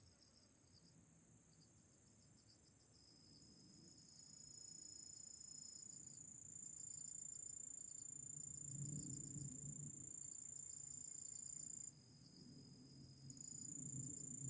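Autumn insects, crickets among them, calling: a steady very high trill with rapid pulsed chirps just below it. Under them a low rumble swells a few seconds in and dips briefly near the end.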